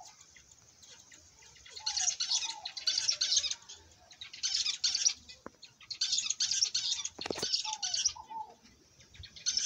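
Aviary birds: diamond doves give soft, falling coos, often two in quick succession, under louder bursts of high, hissy bird sound about a second long each. A single thump comes about seven seconds in.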